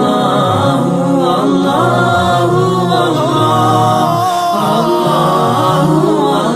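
Unaccompanied nasheed: several layered voices singing a slow melody without instruments.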